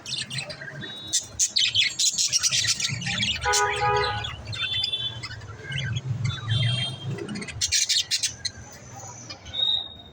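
Pet budgerigars chirping and chattering in quick, dense bursts, with a lower squawk-like call about three and a half seconds in.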